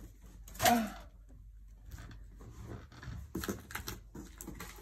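Plastic pencil trays and packaging being handled: a brief pitched sound under a second in, then scattered light clicks and rustles.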